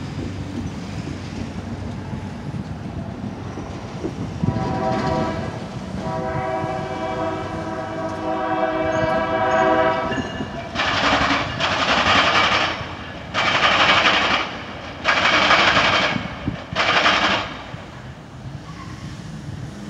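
Tri-Rail commuter train passing, its locomotive horn sounding a multi-tone chord, a short blast then a long one. This is followed by five loud rushing bursts of about a second each, over a steady low rumble.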